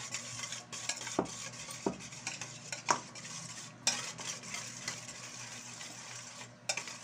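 A wire whisk beating egg yolks in a stainless steel mixing bowl: quick, steady scraping and clicking of the wires against the metal, with a few louder clinks.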